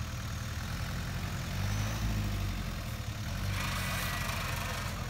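Engines of a Mitsubishi Jeep and a stuck pickup truck running at low revs under load during a tow-strap recovery in sand, swelling briefly about two seconds in. A hissing rush rises near the end.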